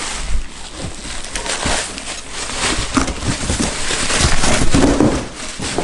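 Bubble wrap and plastic packaging crinkling and crackling as a bagged metal exhaust manifold is pulled from its box and unwrapped. The crackle grows loudest about four to five seconds in.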